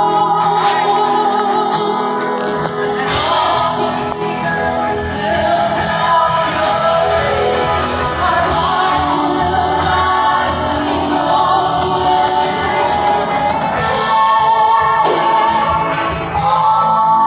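Live worship music: voices singing over instrumental accompaniment.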